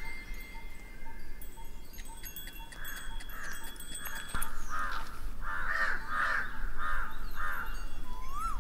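Crows cawing again and again, about two calls a second from a few seconds in. Before that there are faint, thin chime-like ringing tones.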